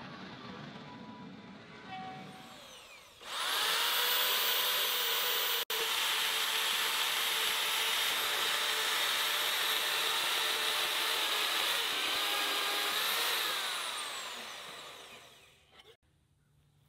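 Corded Vevor portable band saw starting suddenly about three seconds in and running steadily as its blade cuts into a steel pipe. Near the end the motor is released and winds down with a falling pitch.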